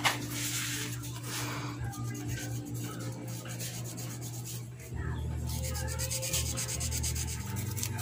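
Scraping and rubbing as a small screwdriver works at the plastic cordless base connector of an electric kettle, prying up a contact that stuck to plastic melted by an overheated heater coil.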